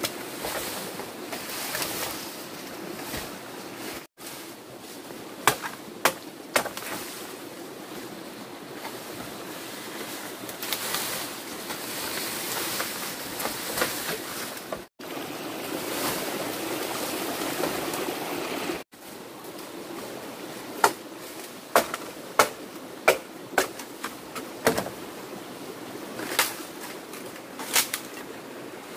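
Rustling of bamboo leaves and dry undergrowth as bamboo stalks are dragged and handled, with sharp knocks of a blade chopping bamboo: three a few seconds in, then a quick run of them in the second half.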